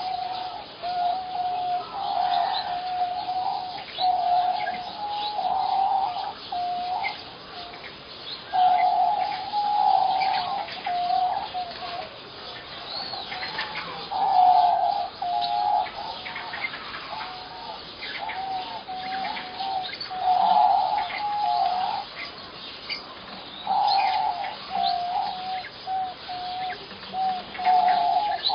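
Birds calling: a wavering mid-pitched call repeated over and over in phrases of about a second with short gaps, with brief higher chirps scattered over it.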